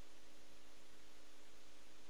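Steady hiss with a low electrical hum under it, unchanging: the background noise of a quiet broadcast audio channel with no speech on it.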